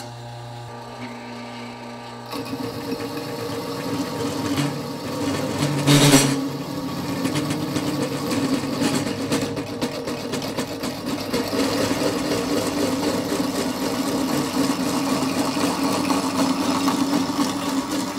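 Baileigh TN-300 hole saw tube notcher: its half-horsepower motor and gearbox run with a steady hum. From about two seconds in, the spinning hole saw cuts into a metal tube as it is fed in by the handwheel, a steady rough cutting noise, with one brief louder bite about six seconds in.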